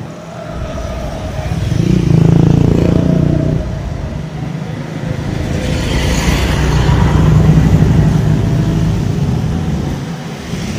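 Motor vehicle engines passing near the microphone, their hum swelling and fading twice, about two seconds in and again around six to eight seconds.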